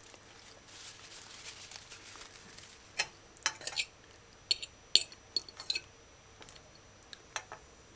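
Metal fork clinking and scraping against a china plate of rice and stew: a scatter of light, sharp taps starting about three seconds in.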